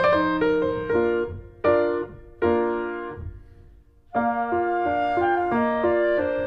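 Background piano music: a gentle melody of struck notes, which thins out and dies away about three seconds in, then starts again about a second later.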